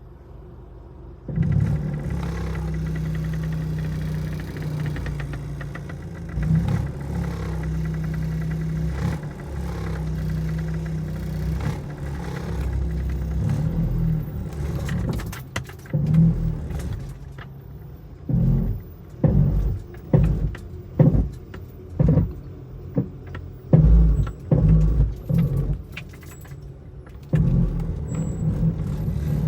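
Honda Stream engine starting and running steadily, then revved in a series of short throttle blips, about one a second, before settling back to a steady run. The odd noise that viewers are asked to guess is not named.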